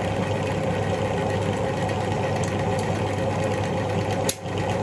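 Electric wire-wheel grinder running steadily with a hum, used to clean bolts. Near the end there is a single sharp click and a momentary dip in the sound.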